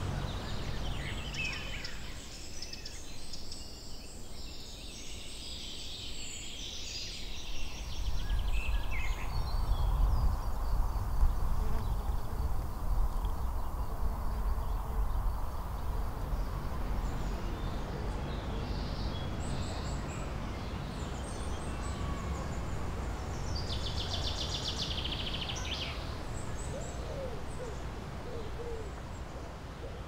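Outdoor nature soundscape: small birds chirping and singing on and off, over a low rumble of wind that is strongest in the middle. Low hooting or cooing calls come in near the end.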